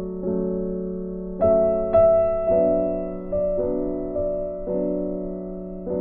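Soft background piano music: chords struck one after another, each fading before the next.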